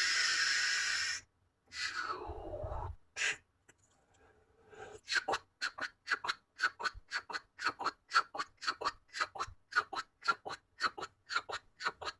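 Cartoon sound effects: a burst of hiss that cuts off about a second in, a falling whistle over a low rumble, a click, then a steady run of quick taps, about three a second.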